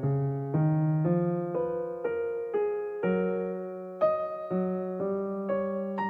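Background music: a gentle piano or electric-piano piece, soft chords or notes struck about twice a second, each fading away before the next.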